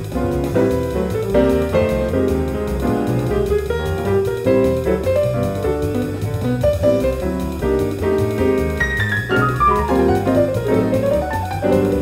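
Grand piano played in a jazz style: chords under a moving melody line, with a quick descending run of notes about nine seconds in.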